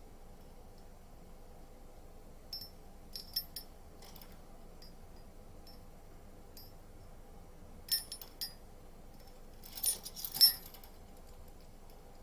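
Light metallic clinks and taps from a budgerigar's cage, in a few short groups, with the loudest cluster about ten seconds in.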